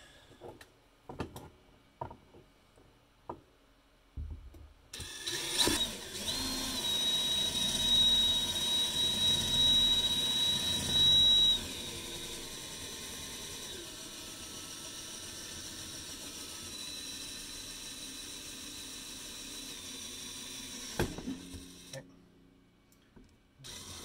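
Handheld power drill boring a hole through a composite plastic decking board, after a few light knocks. The drill starts about four seconds in with a high whine for several seconds, then runs more evenly and stops near the end.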